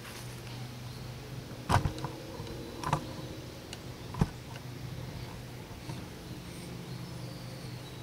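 Three sharp clicks or knocks, about a second apart, over a steady low hum, with a faint thin high tone near the end.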